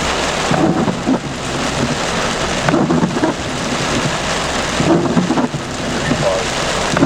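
Heavy rain pouring steadily during a thunderstorm, with thunder rumbling.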